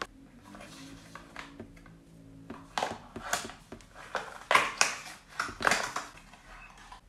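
Small cardboard advent-calendar box being handled and opened: a run of sharp cardboard scrapes, taps and crinkles, mostly from about two and a half seconds in until about six seconds.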